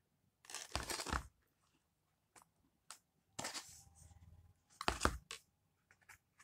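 Aluminium foil takeaway trays crinkling and scraping as they are picked up and moved, in three short bursts with a few light clicks between.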